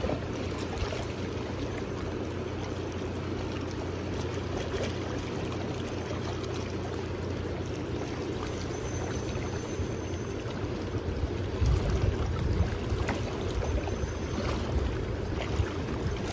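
Steady rushing of river water, with a few knocks and rustles about twelve seconds in.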